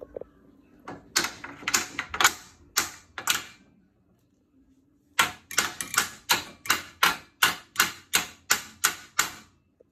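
Hammer striking a steel socket set against a pit bike's front fork triple clamp, sharp metallic blows. A handful of strikes, a pause of about a second and a half, then a quick run of about fifteen at three or four a second.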